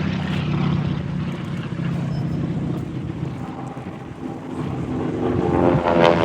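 Propeller aircraft engine droning steadily, with wind on the microphone. The drone dips a little about four seconds in, then grows louder near the end.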